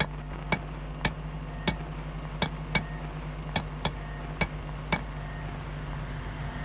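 Intro title sound: a steady low hum under a series of sharp ticks, roughly two a second.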